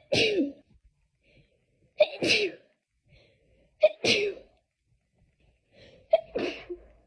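A person sneezing in a fit, four sneezes about two seconds apart, each a sharp catch of breath straight into a short explosive "achoo".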